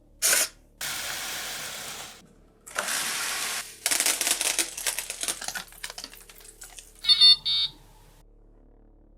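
Several bursts of rushing noise and a run of dense crackling, then a short, loud double beep from an electronic alarm-clock buzzer near the end.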